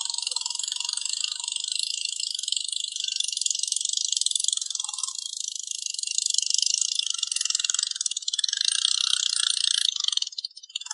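Dense, high-pitched insect chirring: a steady, finely pulsed buzz that breaks off briefly near the end.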